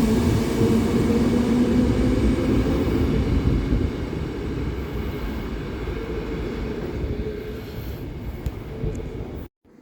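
Electric train running through a station: a loud rumble with a steady motor tone, growing quieter after about four seconds. It cuts off suddenly near the end.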